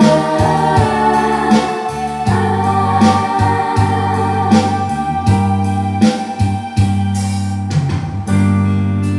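Instrumental introduction of a trot-song backing track: a keyboard melody over held bass notes and a steady drum beat, before the vocal comes in.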